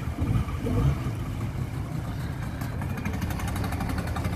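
A motorboat engine running steadily with a low, rapidly pulsing rumble; from about halfway through, a fast even ticking rhythm comes in over it.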